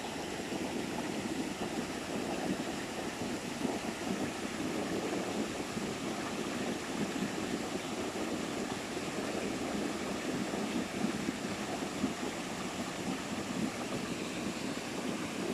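Steady rush of water from a waterfall on a mountain stream.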